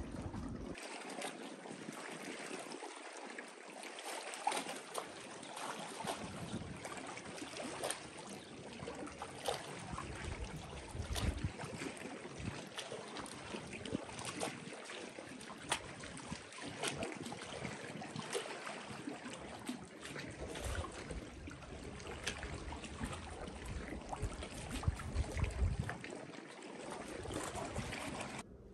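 Water lapping and splashing, with many small splashes and low wind rumble on the microphone at times.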